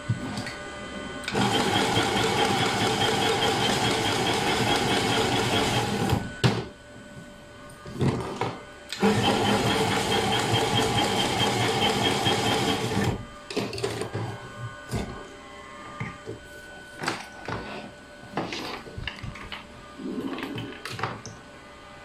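Desktop wire harness tape wrapping machine (AT-110) running twice, each a steady mechanical run of about four to five seconds, as its rotating head wraps tape around a cable bundle. Between and after the runs come short clicks and knocks of the harness being handled.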